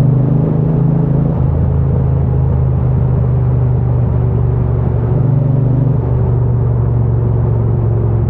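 Triumph Bonneville T120's parallel-twin engine running steadily under way, a low exhaust note whose tone shifts slightly a couple of times.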